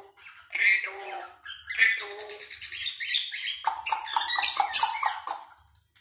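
African grey parrot calling: a few short pitched calls, then from about two seconds in a rapid string of short calls at roughly five a second, loudest near the end.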